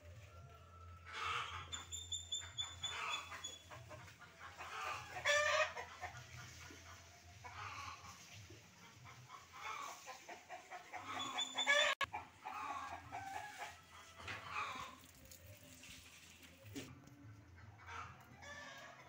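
Domestic chickens clucking and calling on and off, loudest about five and twelve seconds in, over a faint steady low hum.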